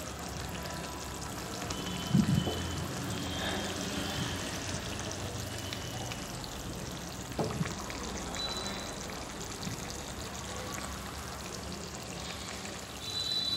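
Spicy pabda fish curry simmering in a pan, the gravy bubbling and sizzling steadily. A couple of brief knocks come about two and seven seconds in.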